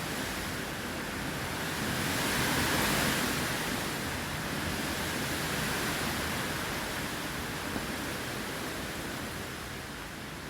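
Steady rushing noise of hurricane weather, rising to its loudest about two to three seconds in, then easing off.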